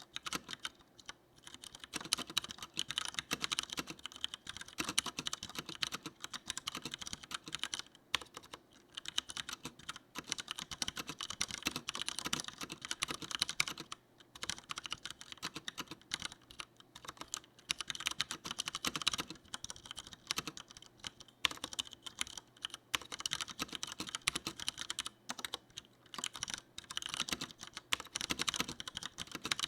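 Continuous fast typing on a Leopold FC900R mechanical keyboard with tactile Cherry MX Brown switches: a dense, irregular clatter of key presses, with brief pauses about a second in, about eight seconds in and about fourteen seconds in.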